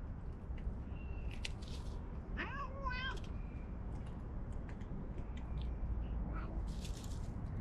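A stray cat meows once, a wavering call just under a second long, with a fainter call later. There are two short hiss-like noises, one before the meow and one near the end, over a steady low outdoor rumble.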